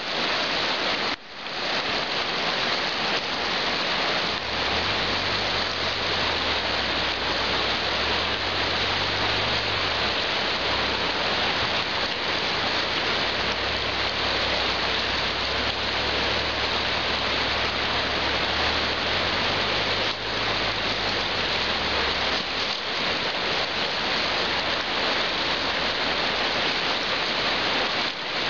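Steady, even hiss of a fast, choppy river's rushing water, with a brief dropout about a second in.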